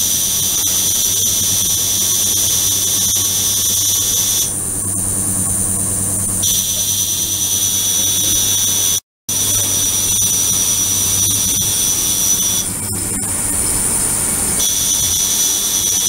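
Ultrasonic cleaning tank running with its transducers immersed. It gives a loud, high-pitched whine of several steady tones over a low hum. The lower tones drop out for a couple of seconds twice and come back, and the sound cuts out for a moment about nine seconds in.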